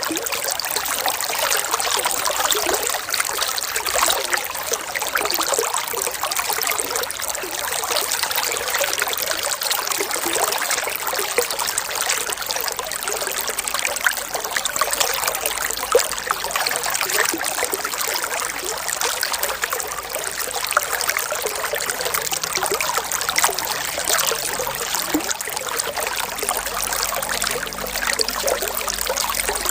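Running water flowing steadily and evenly, with a dense patter of small splashes.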